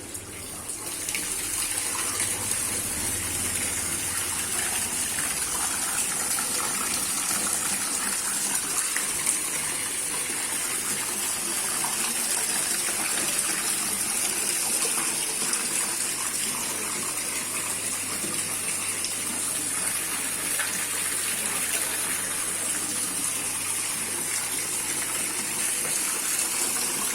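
Water splashing steadily down a small homemade garden waterfall, rising over the first second or two to an even, continuous rush.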